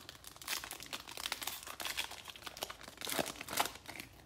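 Foil wrapper of an NBA Hoops Premium Stock card pack crinkling and crackling in the hands as it is opened, in irregular runs of sharp crackles.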